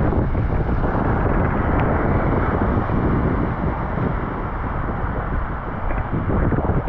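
Wind rumbling and buffeting on the microphone over the steady hiss of rain on a wet street.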